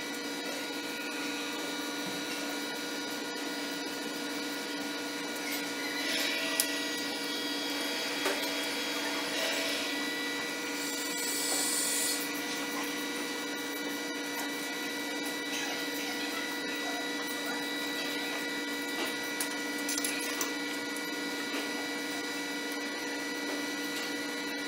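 Steady machine hum made of several fixed tones, like equipment running in a machine shop. Over it come a few brief scrapes and a light knock as the heavy milling-machine head is swung round by hand on its boom.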